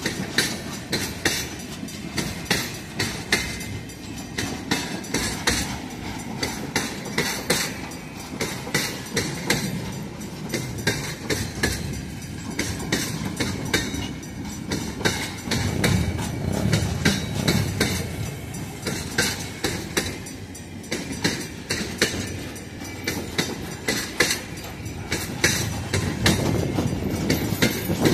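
Empty railway tank cars rolling past close by, their wheels clacking in quick runs of sharp clicks over a steady low rumble. The rumble swells for a few seconds in the middle.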